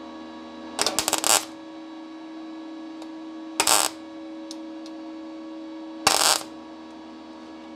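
MIG/MAG welding arc from a Parkside PMSG200A1 inverter welder striking three short crackling tack welds on 0.4 mm thin sheet, about a second in, near the middle and past six seconds, with a steady hum between them. The welder is set very low, at 8.4 V and 50 A, and the sheet tacks without burning through.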